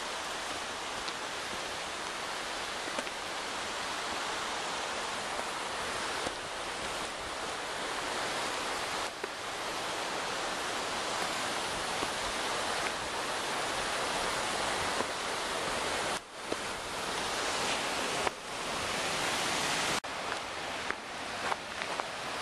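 Steady rush of a forest creek's flowing water, with a few short knocks near the end.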